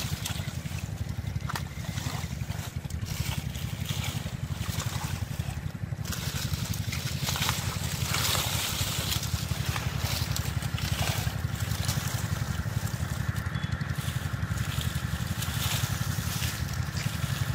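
Water hyacinth stems and leaves rustling and shallow muddy water splashing as hands pull the plants apart, over a steady low rumble.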